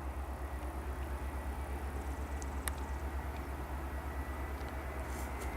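Airbus A320-214's CFM56 jet engines on landing approach: a low, evenly pulsing rumble with a faint steady whine above it. A single sharp click about two and a half seconds in.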